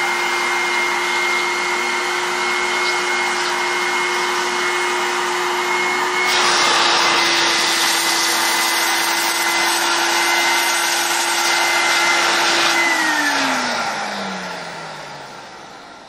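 The onboard vacuum motor of a Desiderio Plus commercial steamer runs steadily, sucking at the folds of an upholstered chair. About six seconds in, the rushing air gets louder and brighter. Near the end the motor's whine drops in pitch and fades as it spins down.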